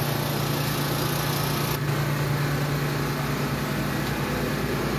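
Small petrol generator engine running steadily with a constant low hum, the kind that powers the lights of a procession float.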